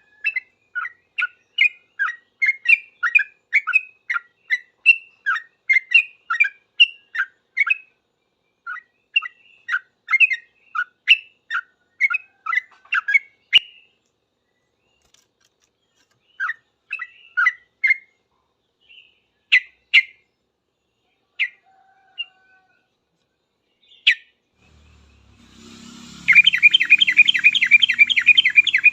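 Yellow-vented bulbul (trucukan) singing: a quick run of short bubbly notes for about the first half, then scattered single notes with pauses. Near the end it breaks into a dense, fast, continuous chattering trill, its loudest part, the rapid 'ropel' song of a bird in full voice.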